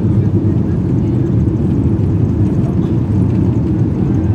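Airliner cabin noise heard from a window seat as the plane rolls along the ground after landing: a steady, loud, low rumble of engines and airframe.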